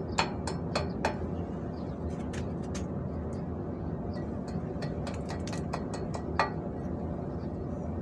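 Small metal clicks and clinks of a hand tool working at a new tie rod end on the steering knuckle while a cotter pin is fitted. The taps are scattered and irregular, with a louder click near the start and one about six and a half seconds in, over a steady low hum.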